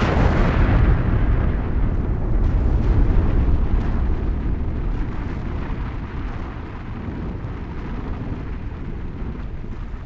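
Explosive demolition of power-station chimneys: a sudden blast, then a long deep rumble as the chimneys collapse, slowly fading.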